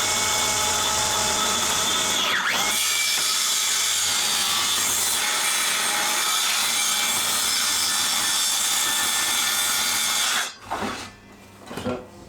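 Electric power saw cutting through timber board: a steady loud motor whine with sawing noise, dipping briefly about two seconds in, then cutting off about ten seconds in, followed by a few light knocks.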